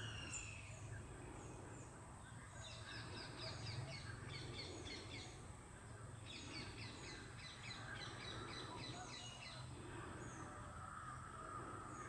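A bird calling in two runs of rapid, sharp repeated notes, the first starting about three seconds in and the second about six seconds in, each lasting a few seconds.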